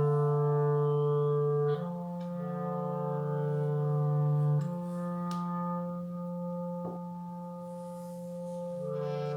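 Several layered clarinet tracks hold long, low notes together as a sustained chord. The chord shifts about two seconds in and again near five seconds, with a couple of faint clicks in between.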